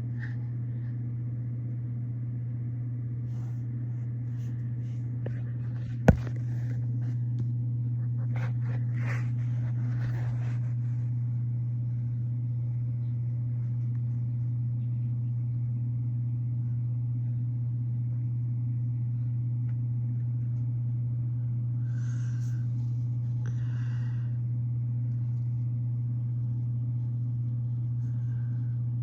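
Steady low hum with faint higher tones above it, and one sharp click about six seconds in.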